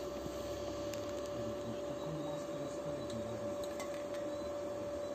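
Electric arc welding on a steel gate post: a steady hiss of the arc with a few light crackles, over a low hum and a constant high whine.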